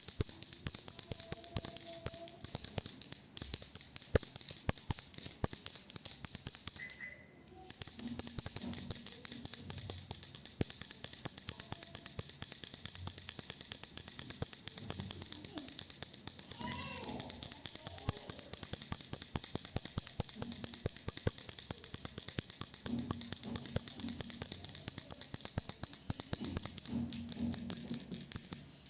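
Pooja bell (ghanti) rung continuously, its clapper striking rapidly so that a steady high ringing is held. The ringing breaks off for about half a second around seven seconds in, then resumes.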